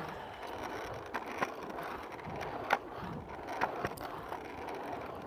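RipStik caster board wheels rolling over concrete: a steady rolling rumble with a few sharp clicks, the wheel bearings freshly cleaned with WD-40 and greased.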